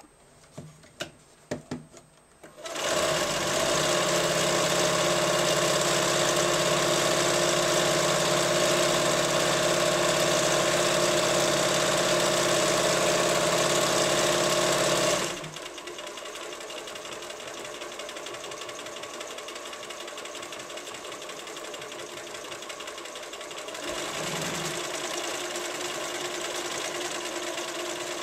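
Riccar electronic sewing machine stitching, preceded by a few clicks. It starts about two and a half seconds in, runs loud and steady, drops suddenly to a quieter run about halfway through, and picks up slightly near the end.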